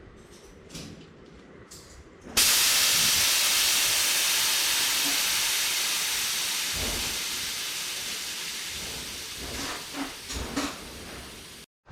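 Air hissing out of a road bike tyre as it is let down for removal. The hiss starts suddenly a couple of seconds in, loud, and slowly fades away over several seconds as the pressure drops.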